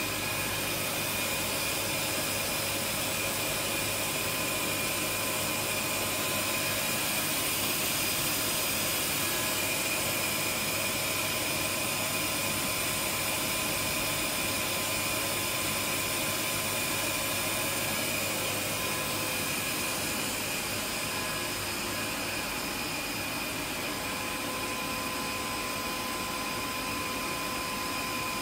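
A powered-up CNC vertical machining centre, a 1997 Bridgeport VMC 1000/22, running with a steady whir and several thin, high whining tones. The whine near 1 kHz fades out for a few seconds after the middle and comes back.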